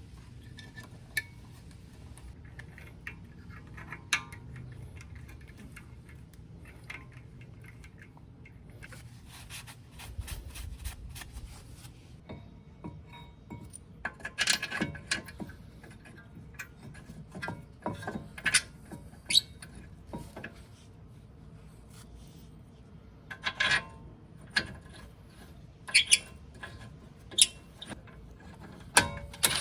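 Metal tools and brake parts clinking, tapping and scraping in short bursts, scattered irregularly over a low steady background hum.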